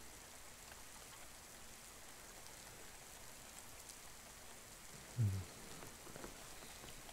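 Steady rain falling, with a few faint drip taps. About five seconds in, a man's voice gives a short, low 'mm' that drops in pitch.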